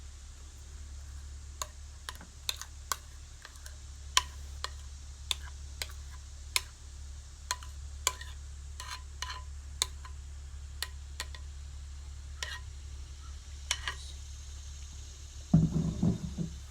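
A spoon clicking and tapping irregularly as pumpkin bread batter is spooned into small bread pans, over a low steady hum. A louder thump comes near the end.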